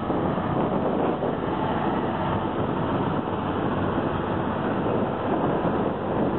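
Diesel engines of County four-wheel-drive tractors running steadily under load while ploughing.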